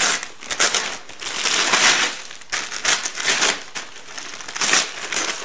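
Plastic packaging crinkling and rustling as it is pulled open and crumpled by hand, in irregular bursts, loudest about two seconds in and again near the end.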